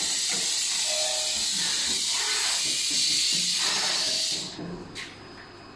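Steady loud hiss of air from an automatic screen-printing machine and its feeding table. It cuts off abruptly about four and a half seconds in, and a single short click follows.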